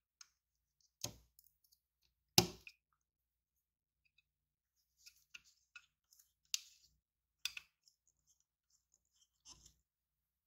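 Plastic parts of a scale model car clicking and knocking as gloved hands fit the interior into the chassis: a few sharp clicks, the loudest about two and a half seconds in, with small ticks between them.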